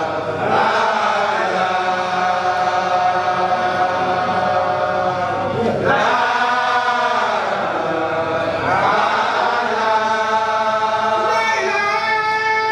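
A group of Baye Fall men chanting a Mouride devotional chant in unison, in long held phrases of about three seconds, each beginning with an upward swoop.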